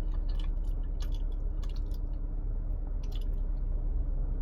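A person chewing food close to the microphone: irregular soft clicks and squishes of the mouth, over a steady low hum.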